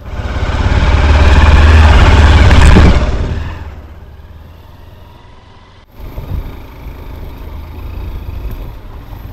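Road vehicle noise: a loud rushing rumble that swells and dies away over about three seconds. After an abrupt break, a quieter steady engine rumble follows.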